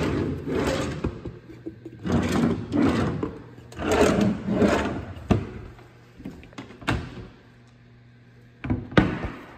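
Wooden kitchen drawers pulled open and pushed shut one after another: three rubbing slides in the first half, then a few knocks as they close. Near the end comes a sharp knock from a cabinet door.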